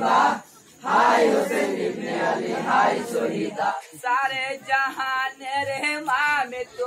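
Men's voices chanting a jari marsiya lament together, loud and in phrases. About four seconds in, the group drops out and a single voice sings a wavering, ornamented solo line.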